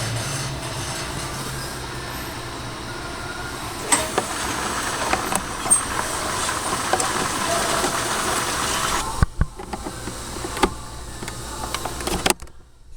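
Steady running noise of a vehicle, with several sharp clicks and knocks. The sound drops away suddenly about nine seconds in and again near the end.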